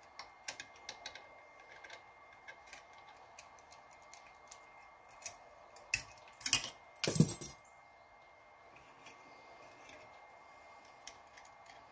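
Scattered light metallic clicks and taps of tools and metal parts being handled, with a louder clatter about seven seconds in.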